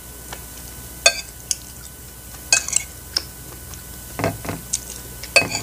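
A metal spoon clinking and scraping against a ceramic plate several times as food is scooped up, with a few softer eating sounds from the mouth about four seconds in.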